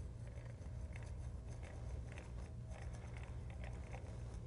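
Hand crank drill being turned, driving a 3/16-inch bit down into a balsa wood block: faint, irregular ticking and crunching from the gears and the cutting bit, over a steady low hum.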